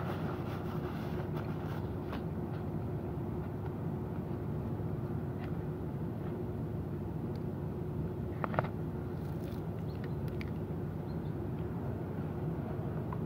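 Steady low mechanical hum with a faint held tone, from an unseen machine or traffic, under a few light clicks and rustles of food and a napkin being handled; one sharper click about eight and a half seconds in.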